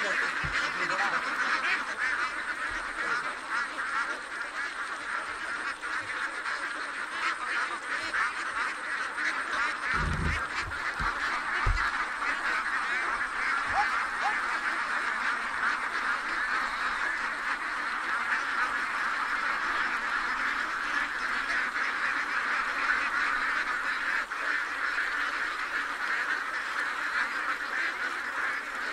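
A large flock of domestic ducks quacking all together in a dense, continuous chorus.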